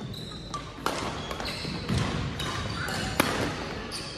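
Badminton rally: three sharp racket-on-shuttlecock hits about a second apart, with court shoes squeaking briefly on the gym floor between them.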